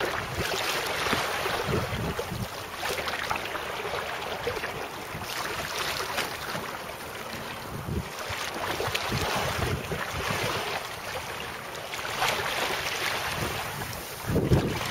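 Wind buffeting the microphone while the homemade kayak sail, coloured fabric with a clear plastic window, rustles and flaps in the breeze, over the splash of water. A stronger gust of wind hits the microphone near the end.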